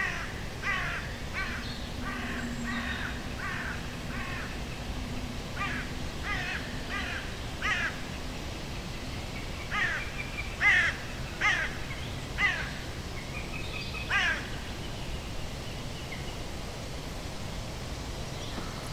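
A bird calling in runs of short calls that drop in pitch, about one or two a second, with pauses between the runs; the loudest calls come just over halfway through.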